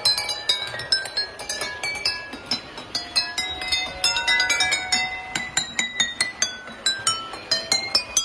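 Drinking glasses partly filled with water, struck one after another by small strikers on a passing model train, ringing out a melody of clear glassy notes, several strikes a second at changing pitches.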